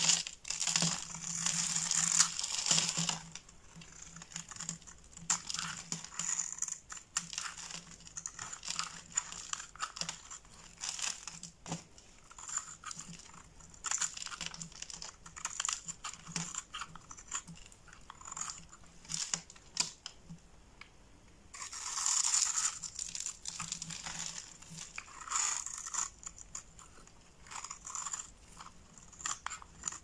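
A utility-knife blade scraping and shaving a bar of soap into crumbles and thin curls: dense scraping for the first few seconds and again about three-quarters of the way through, with lighter, separate scratch strokes in between.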